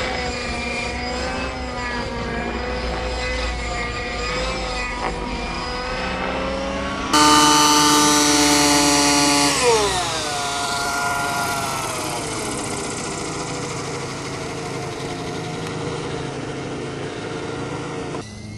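RC helicopter running in flight, a steady pitched drone of engine and rotor. About seven seconds in it gives way to an Align T-Rex 800 helicopter heard close up, much louder, whose pitch falls about two and a half seconds later and then holds steady at a lower pitch.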